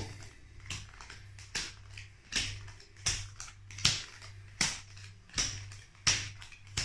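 Playing cards dealt one at a time from the deck onto a cloth-covered table, a short sharp slap about every three-quarters of a second, about nine in all. A low steady hum runs underneath.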